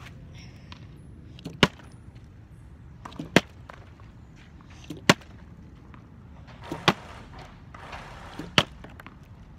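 Partly filled plastic water bottle being flipped and landing on the hard court surface again and again: five sharp knocks about every 1.7 seconds.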